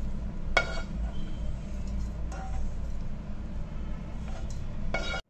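A few short utensil clinks and knocks as roasted grated dry coconut is put into a mixer-grinder jar, over a steady low background hum. The mixer is not running.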